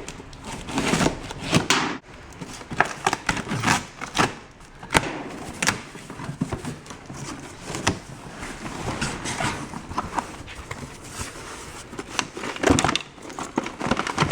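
A cardboard box being opened and rummaged through by hand: irregular rustling, crackling and scraping, with scattered sharp clicks and knocks as flaps and contents are moved about.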